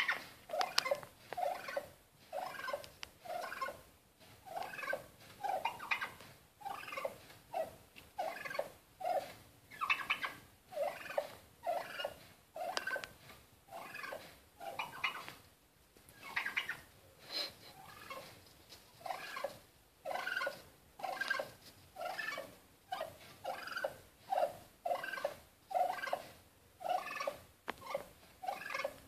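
Male wild turkey calling over and over: short calls a little more than one a second, with hardly a pause.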